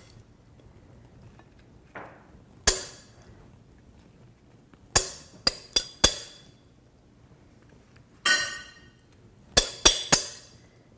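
A serving spoon clinking against a dish as salad is spooned out: several short, sharp clinks in scattered groups, one about eight seconds in ringing briefly.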